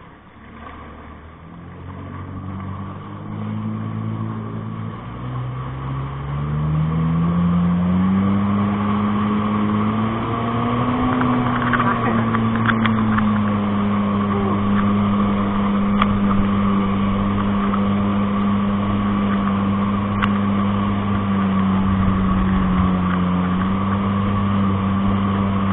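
Speedboat engine throttling up from low revs, its pitch climbing in steps over the first several seconds, then running steady at speed while towing an inflatable banana boat. The rush of wake water and spray runs under it.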